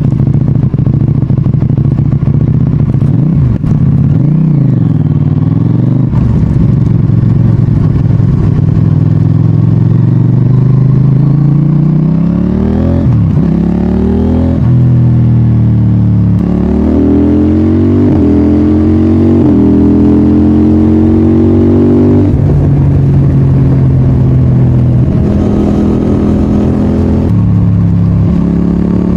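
CFMOTO 800NK Advanced's parallel-twin engine pulling hard through the gears. About halfway through, the pitch climbs and is cut by a series of sudden drops as the quick shifter makes clutchless upshifts, before the engine settles into steadier running near the end.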